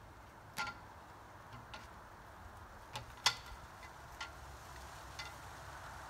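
About seven scattered sharp clicks and light knocks at uneven intervals, a couple with a brief ringing edge, the loudest a little past halfway through.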